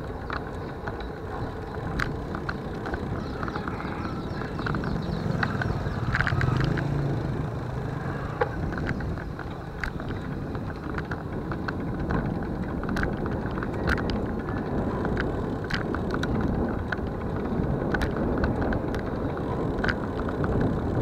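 Steady wind and road rumble on a camera riding along a rough rural road, with irregular clicks and rattles from bumps.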